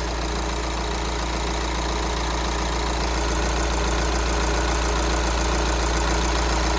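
A VW Transporter T5.1's 2.0-litre four-cylinder common-rail diesel idling steadily.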